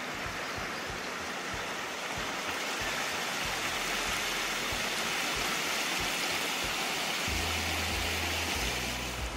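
Buffalo River water rushing steadily over a rippled, shallow stretch, a little louder from about two seconds in.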